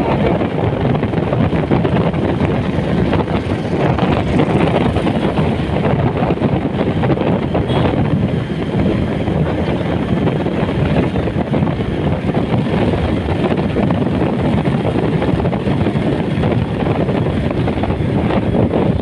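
Steady wind rush buffeting the microphone of a moving motorbike or scooter, with the engine and tyre noise running underneath.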